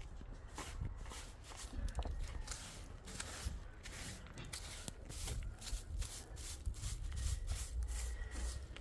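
Irregular rustling and soft clicks, like hands handling things or light steps, over a steady low rumble.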